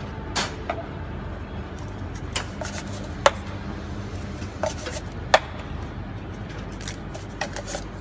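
Sharp clinks and taps of cups and utensils being handled on a metal coffee-bar counter, about half a dozen, the two loudest in the middle, over a steady low hum from the café and its espresso machine.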